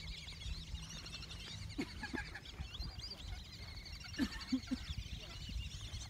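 A large flock of water birds calling over one another in a continuous high chatter, with a few short, lower honking calls about two seconds in and again just past four seconds.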